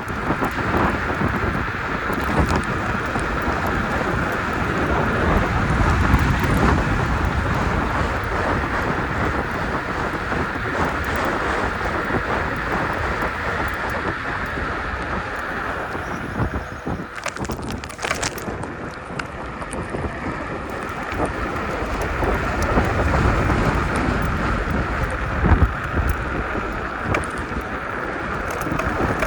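Wind buffeting the microphone during a ride on a KuKirin G2 electric scooter, with steady rumble from the ride and a short break in the noise about two-thirds of the way through.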